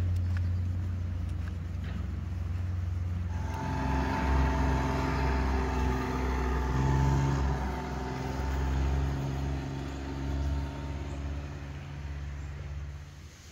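A motor vehicle's engine running, over a steady low hum. It grows louder with a rush of noise and engine tones about three seconds in, then dies down near the end.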